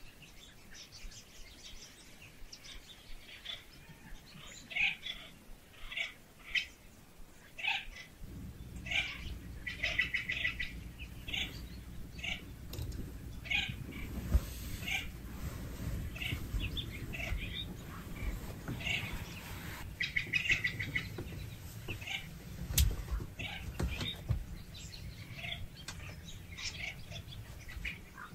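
Birds chirping in short, repeated calls at irregular intervals. A low rumble joins them about eight seconds in.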